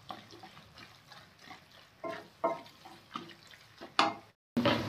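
A spatula stirring and scraping a thick bean, carrot and tomato curry around a steel kadhai in irregular strokes, with a soft wet squelch as it turns. Near the end the sound cuts out for a moment and a steady sizzle of the curry frying begins.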